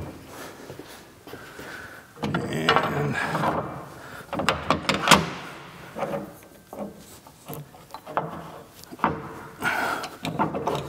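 Steel lead screw and feed rod being slid forward into a lathe's quick-change gearbox end, with their end gears worked into mesh by hand: irregular metallic rattling and scraping, with a cluster of sharp knocks about five seconds in.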